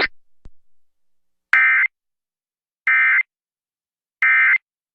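Emergency Alert System end-of-message signal: three short digital data bursts about 1.3 seconds apart, marking the end of the alert broadcast.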